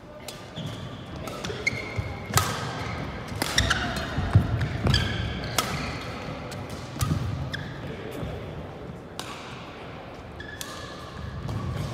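Badminton play: sharp smacks of rackets hitting the shuttlecock, mixed with short squeaks of court shoes on the hall floor, busiest in the first half.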